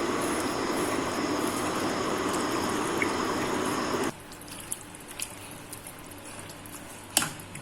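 Water being poured steadily into the raw chicken and masala mixture, stopping abruptly about four seconds in. After that come a few light clicks and a sharp knock near the end.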